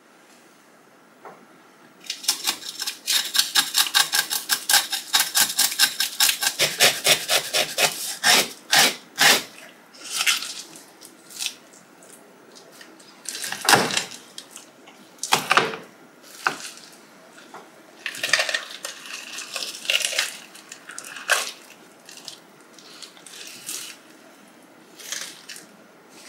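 Kitchen knife scraping scales off a whole fish on a bamboo cutting board: a quick run of scrapes, about five a second, starting a couple of seconds in. It is followed by slower single scrapes and cuts, one of them a heavier knock about halfway through.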